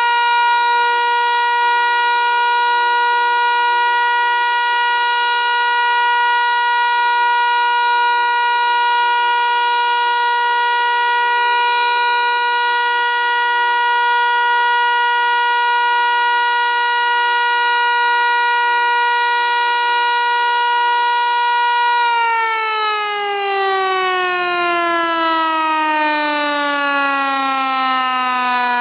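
Federal Signal Eclipse 8 electronic outdoor warning siren sounding its Alert signal: a loud, steady single tone with many overtones. About 22 seconds in, the pitch starts to fall steadily as the siren winds down at the end of the test.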